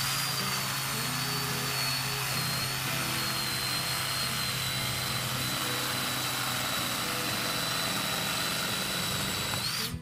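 Handheld electric saw running steadily as it cuts a fallen tree limb, with a high motor whine. The pitch sags a little under load, then rises just before the sound cuts off near the end.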